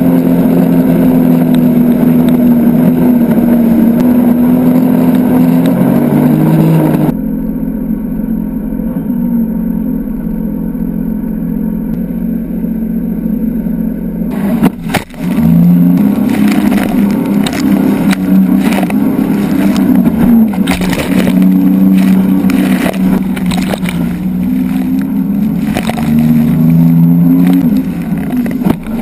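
Sea-Doo RXT-X jet ski engine running under way, its pitch wavering up and down with the throttle, with water and wind rushing against the microphone. About halfway through there is a sudden drop and a crash of water, after which spray spatters on the microphone in quick hits.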